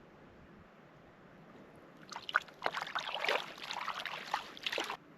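Water splashing in quick irregular bursts for about three seconds, starting about two seconds in, as a hooked brook trout thrashes at the surface while it is landed.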